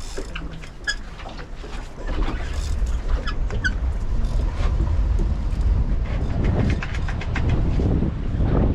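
Wind buffeting the microphone: an uneven low rumble that gets much heavier about two seconds in. Scattered small clicks and a few short squeaks sound over it.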